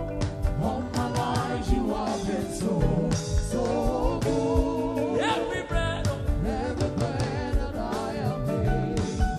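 Live gospel worship music: voices singing over a band with a steady drum beat.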